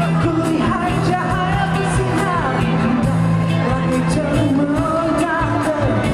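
Pop song with a singing voice over sustained bass notes and a regular drum beat.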